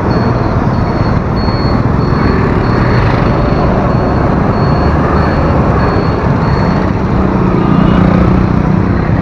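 TVS scooter riding through motorbike traffic: a steady, loud rush of wind and road noise mixed with the scooter's engine and passing motorbikes. A faint high beep repeats about twice a second for most of the time.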